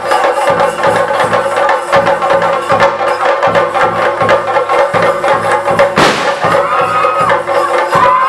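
Theyyam percussion: chenda drums beaten in a fast, even rhythm with cymbals over a held tone. A short rushing sound comes about six seconds in.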